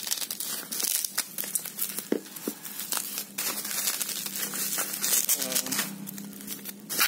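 Plastic bubble wrap crinkling and rustling in irregular crackles as it is handled and pulled off a boxed phone.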